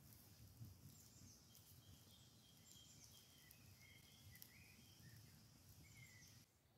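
Very quiet woodland background with birds chirping faintly: short high calls every second or so.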